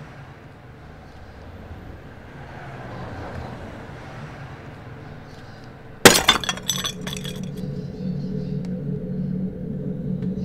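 A ceramic flower pot falls and smashes on paving stones about six seconds in: one sudden, very loud crash followed by the rattle of shards scattering for a second or so. A low steady hum follows.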